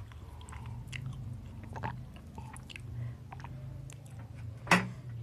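A person chewing food close to the microphone: soft wet mouth clicks and smacks, with one louder smack near the end, over a low steady hum.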